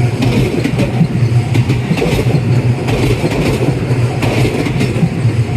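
Tobu Railway 10000-series electric train running, a steady loud rumble with irregular clicks and clatter from the wheels on the rails.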